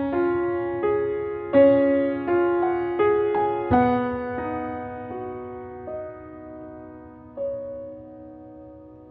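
Soft piano music: sustained notes struck one after another, slowing and fading over the stretch, with one fresh note near the end.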